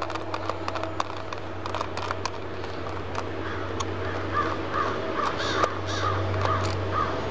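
Small clicks of a Phillips screwdriver working the screws of a laptop's back panel. From about four seconds in, a bird gives a quick run of about eight short calls, over a steady low hum.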